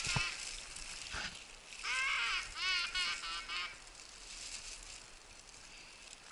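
Duck quacking in two quick runs: a short burst about two seconds in, then about five rapid quacks just after. Two soft knocks come in the first second and a half.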